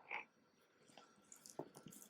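A mini rabbit chewing food, faint: one short crunch just after the start, then a few soft, scattered chewing clicks.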